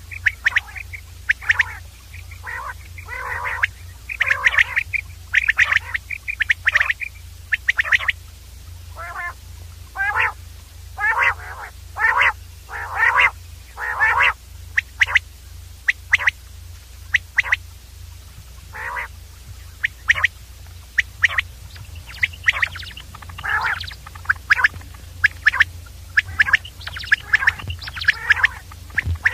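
Common quail calling over and over, short sharp calls coming in quick, irregular runs, over a steady low hum.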